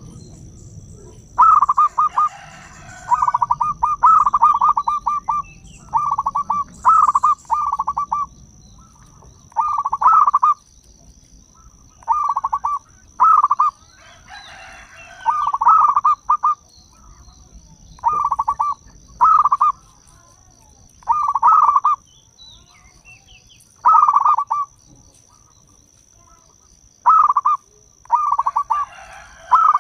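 Zebra dove (perkutut) cooing over and over: short phrases of rapid stuttering coo notes, one every second or two, sometimes in quick pairs, with brief pauses between them. A faint steady high tone hums underneath.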